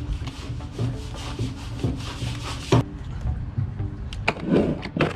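Scraping and rubbing with a few sharp knocks inside a boat's anchor locker as it is probed to clear a clogged drain. Background music plays under it.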